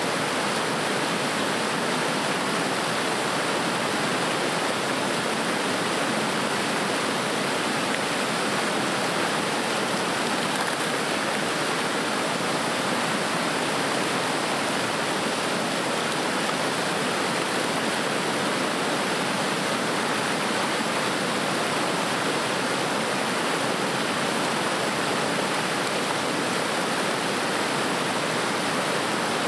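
River rapids, whitewater rushing steadily over rocks.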